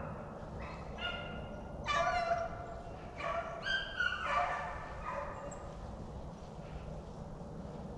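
A pack of rabbit hounds baying on the trail of a rabbit, several voices overlapping, busiest in the first five seconds and thinning out after.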